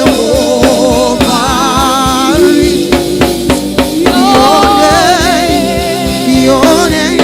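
Live gospel worship band with drum kit playing, with singers holding a long sung note with vibrato on "Jehovah" between lines.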